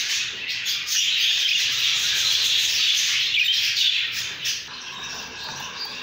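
Budgerigars chattering and warbling, a dense scratchy twittering that becomes quieter a little before the end.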